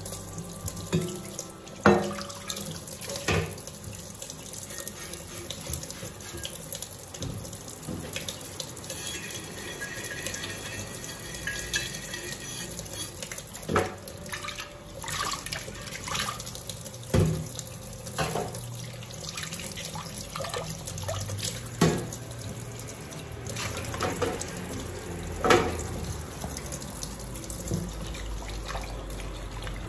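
Kitchen tap running into a stainless steel sink while dishes are washed by hand, with a bottle brush scrubbing and dishes knocking against the sink now and then, about half a dozen sharp clinks.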